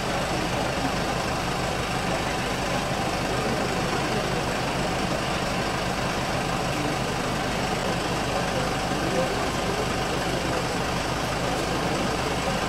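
An ambulance's engine idling steadily, a constant low hum.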